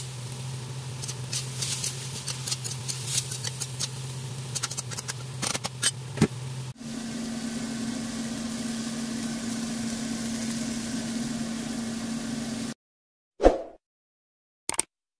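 Stir-fry crackling and popping in a covered stainless wok over a steady low hum. After an abrupt cut comes a steadier, slightly higher hum for several seconds, then a short loud whoosh and a small click near the end.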